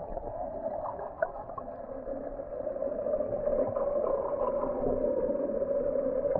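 Muffled underwater sound picked up by a submerged action camera: a steady hum, a little louder after about two and a half seconds, with all the higher sounds cut off, and a few faint ticks about a second in.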